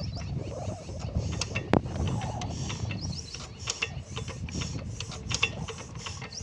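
Irregular metallic clicks and knocks from a green single-cylinder stationary diesel engine being turned over by hand at its flywheel, with one sharp knock a little under two seconds in. The engine does not fire or run.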